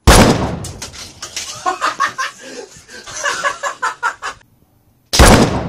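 .22 rifle fired twice, about five seconds apart, each shot a sharp crack with a short ringing tail. Between the shots a person laughs.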